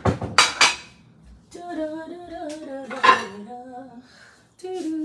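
Ceramic plates clattering as they are picked up, then a woman humming a tune, with another clatter of dishes partway through.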